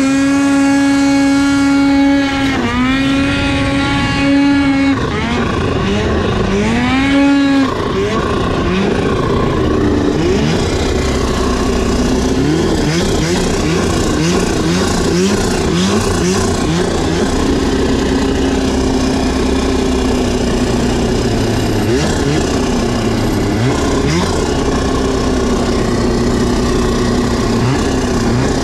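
Snowmobile engine revving high three times in quick succession, each a sharp rise in pitch held for a second or two. It then runs on at changing throttle with many short rises and falls in pitch as the sled is ridden through deep snow.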